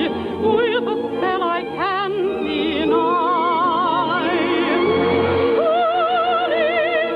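Operetta singing: a trained voice with wide vibrato holding long notes over musical accompaniment.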